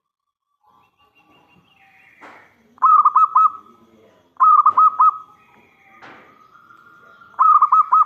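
Zebra dove (perkutut) cooing its song in three short phrases, each a quick run of about four rolling coos. The recording is played as a lure call to draw other perkutut to answer.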